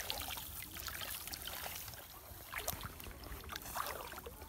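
Shallow water trickling, with light splashes and small scattered clicks.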